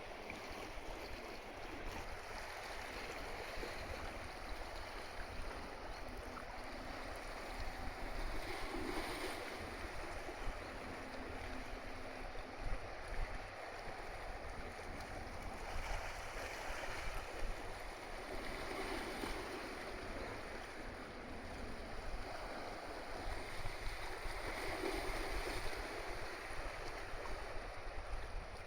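Tokyo Bay car ferry Kanaya Maru under way into port: a steady rush of wind and water over a low rumble.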